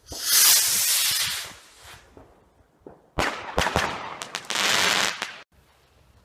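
Fireworks: a loud hiss lasting about a second and a half, then a few sharp cracks about three seconds in, followed by another loud hiss that cuts off suddenly.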